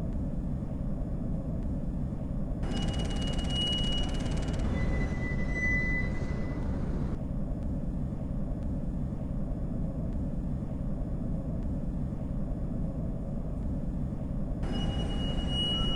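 Electroacoustic music built from sampled and processed metro train recordings: a steady low rumble like a running train, with a sustained high whistle-like tone coming in twice, the first time stepping down to a lower note.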